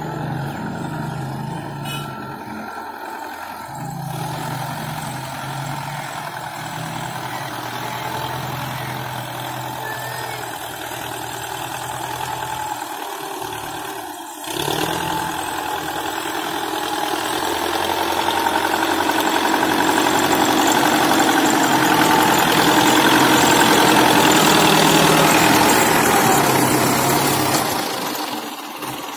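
Belarus 510 tractor's four-cylinder diesel engine running steadily under load while pulling a spring-tine cultivator through the soil. It grows louder through the second half as the tractor comes close, then drops away near the end.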